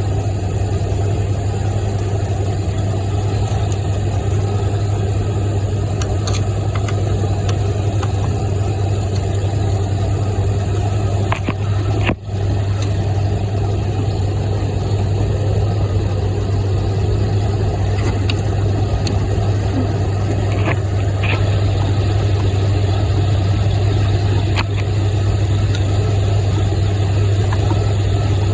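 A vehicle engine idling steadily, with a deep, even hum that briefly cuts out about twelve seconds in. A few faint clicks sound over it.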